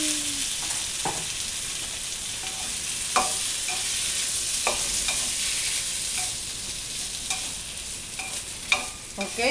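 Diced potatoes sizzling as they fry in hot oil with a splash of red chile salsa in a wide metal pan, with a steady hiss. A utensil stirs them, clicking and scraping against the pan every second or so.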